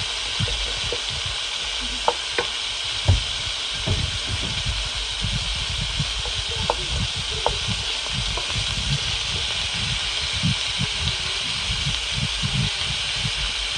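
Sliced onions and red and green bell peppers sizzling in hot oil in a pan, stirred with a wooden spoon that knocks and scrapes against the pan, with a few sharper taps about two to three seconds in.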